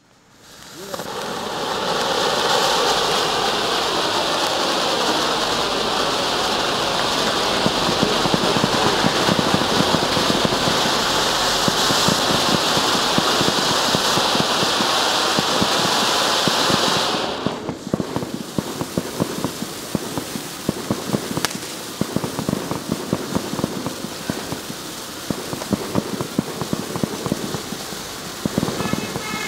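Dominator Eco 'Diamonds and Emeralds' firework fountain burning. It builds over the first couple of seconds to a steady, loud hiss of spraying sparks. About seventeen seconds in, the hiss drops away into continuous dense crackling as the crackling stars take over.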